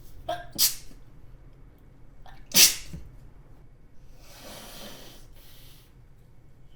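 A woman sneezing twice in a fit of repeated sneezes, each sneeze led by a short catching breath, the second sneeze louder. A couple of seconds of breathy noise follow.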